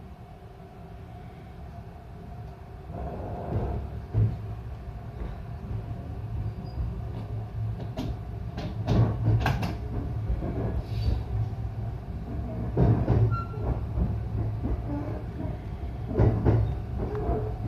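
Electric local train pulling away and gathering speed, heard from inside the carriage. The low running rumble grows steadily louder, and from about halfway through sharp knocks of the wheels over rail joints come in clusters.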